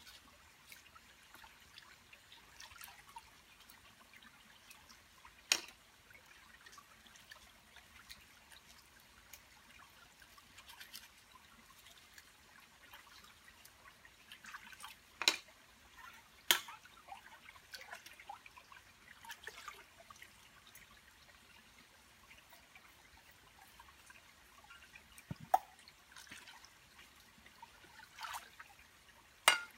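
Shallow forest stream trickling quietly over rocks, with a handful of sharp splashes and knocks as hands work in the water beside a metal pot and mug.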